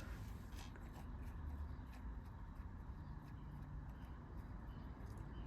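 Faint, light clicks of small metal parts being handled as a 10 mm wrench works the fuel filter fitting off a Dell'Orto carburetor, over a low steady background rumble.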